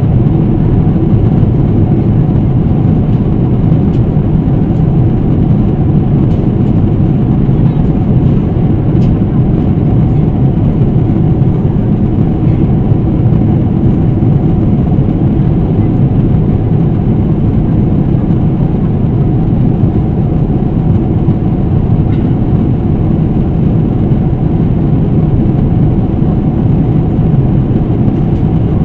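Steady cabin noise of a Boeing 777-300ER in flight: a loud, even low roar of airflow and engines, with a faint steady hum on top.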